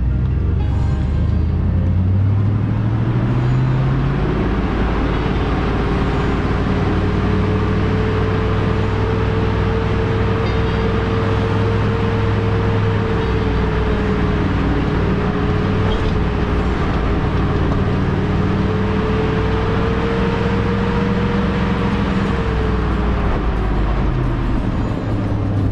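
2001 GMC Sierra 2500HD pickup driving: its engine note climbs over the first few seconds, then holds a steady drone with a high tone over a low rumble, and eases off near the end.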